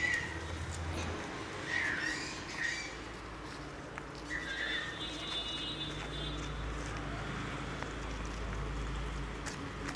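Puppies giving several short, high-pitched whimpers and yelps in the first five seconds.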